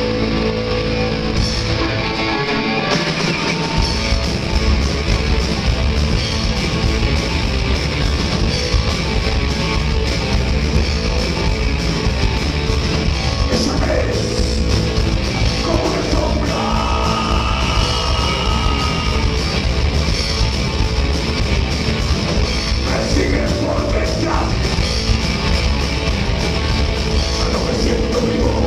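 Rock band playing heavy rock live, loud and steady, with the bass end filling in about four seconds in.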